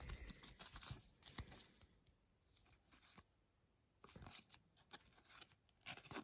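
Faint rustling and light clicks of baseball trading cards being handled and flipped through, with a quiet pause of about two seconds in the middle.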